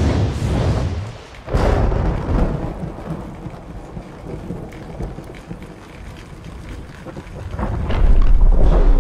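Thunder: deep rolling rumbles with a sharp thunderclap about a second and a half in, fading to a lower rumble, then a heavy, deep rumble swelling up near the end.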